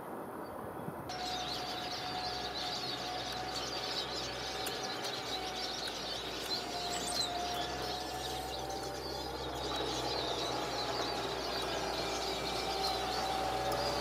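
Many small birds chirping and twittering in a dense, continuous chorus that starts about a second in, over a steady low hum.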